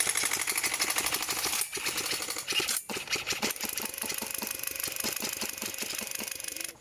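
Airsoft electric rifle firing on full auto: long rattling strings of rapid shots, with two short breaks about two and three seconds in.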